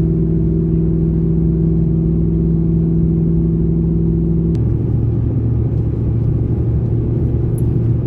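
Car driving at steady speed: a constant engine hum over road rumble. The engine note drops to a lower pitch a little over halfway through.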